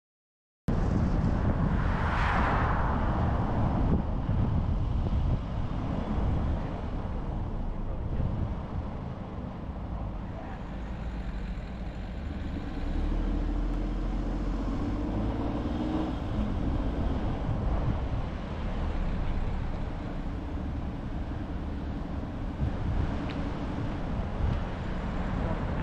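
Car being driven: steady low engine and tyre road noise, with a louder rushing swell about two seconds in.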